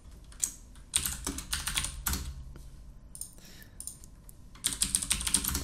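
Typing on a computer keyboard: two quick runs of keystrokes, one about a second in and another near the end.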